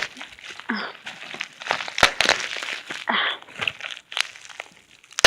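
Plastic packaging crinkling and rustling as a heavily taped mail bag is worked open by hand, with irregular sharp snaps and crackles.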